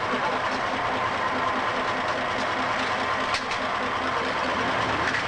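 A bus engine idling, a steady running noise with a low, evenly pulsing note. A short sharp click sounds a little over three seconds in.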